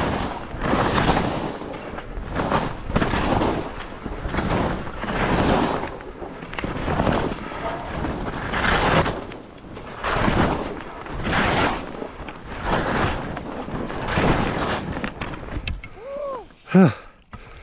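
Skis turning through soft, chopped snow, a rhythmic swoosh with each turn about once a second, with wind on the microphone. Near the end the turns stop and a short voice sound rises and falls.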